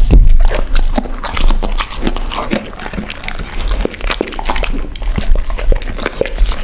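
Two dogs, one an Alaskan Malamute, licking and chewing food scraps off a wooden cutting board, picked up close by a microphone: wet smacking and lapping with irregular clicks of tongue and teeth.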